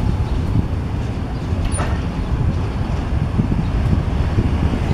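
Low, steady rumble of a CSX freight train moving away from the grade crossing, with a brief high chirp about two seconds in.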